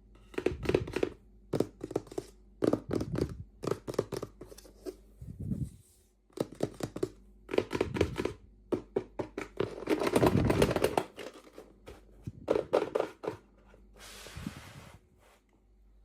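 Hands opening toy packaging: bouts of crinkling, tearing and small clicks and taps, busiest about two thirds of the way in, with a softer, steady rustle near the end.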